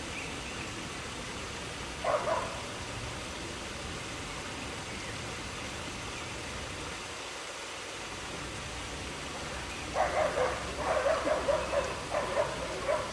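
Waterfall running in a steady rush, with a short animal call about two seconds in and a quick series of short animal calls starting near the end.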